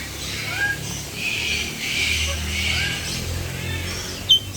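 Several birds chirping with short gliding calls over a low background rumble, with one short sharp high note about four seconds in.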